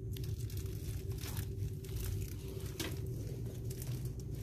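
Plastic packaging crinkling in a few short crackles as a product is handled, over a steady low background hum.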